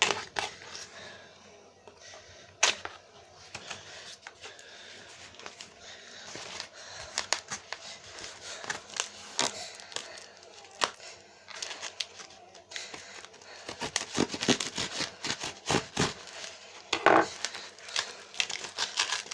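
A parcel's packaging being torn open and crinkled by hand: scattered rips and crackles that grow much busier in the last few seconds.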